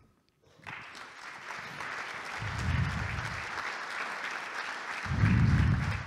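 Audience applauding, beginning about half a second in and keeping up steadily. Two spells of low rumble sit under it, one about two and a half seconds in and a louder one near the end.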